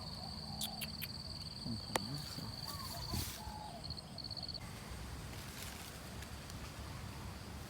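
An insect, cricket-like, trilling on one steady high note. It breaks up briefly and stops a little past halfway, over a low outdoor rumble.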